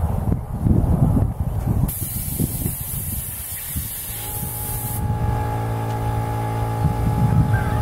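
Paint spray gun hissing as it blows compressed air in a blast of about three seconds, then again right at the end; the uncleaned gun passed air but no paint. Wind rumbles on the microphone at first, and a steady hum with several tones starts about four seconds in.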